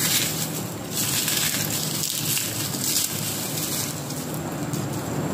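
Dry, papery garlic skins crackling and rustling as cloves are peeled and rubbed by hand on a stone counter, in several stretches of about a second each, over a steady low hum.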